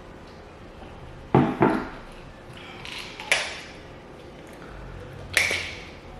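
Eating utensil knocking and clinking against a dish: two quick knocks about a second and a half in, another about halfway, and one more near the end.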